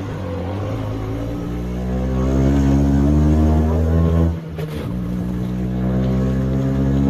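Auto rickshaw engine heard from inside the cab, accelerating with a drone that rises slowly in pitch. About four and a half seconds in it dips briefly, then picks up and pulls steadily again.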